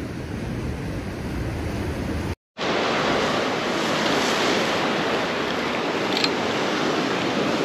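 Ocean surf washing on rocks, with wind on the microphone. The sound drops out completely for a moment about two and a half seconds in, then the surf comes back louder and steady.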